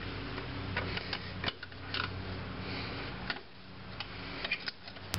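Needle-nose pliers working the lower return spring of a rear drum brake: a dozen or so irregular light metal clicks and scrapes over a steady low hum.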